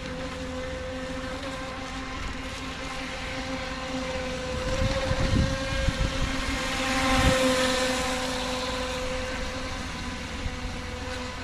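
UDI 022 Tylosaurus RC speedboat's electric motor whining steadily as the boat runs across the water, louder for a few seconds around the middle as it passes closest, with low rumbles mixed in.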